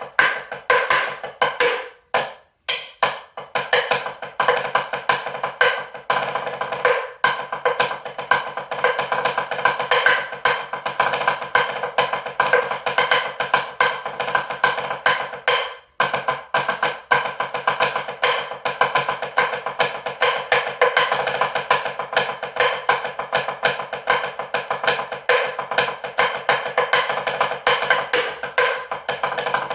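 Rapid hand percussion: fast, dense strokes struck by hand, like a wood block, pausing briefly about two seconds in and again around sixteen seconds.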